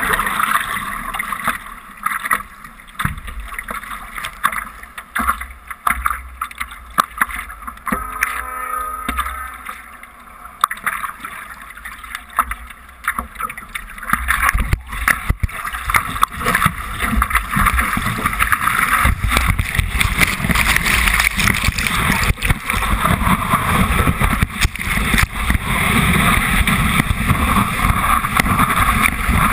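Lake water washing and splashing around a surfboard, with wind buffeting a microphone on the board. From a little past the middle it grows louder and rougher as the board rides the white water of a breaking wave.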